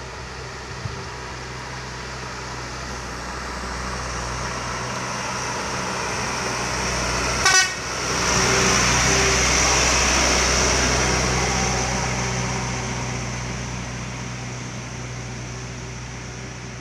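Light truck approaching and passing close: its engine grows steadily louder, a short horn toot sounds about halfway through, and then the truck goes by with a surge of engine and tyre noise that slowly fades as it drives away.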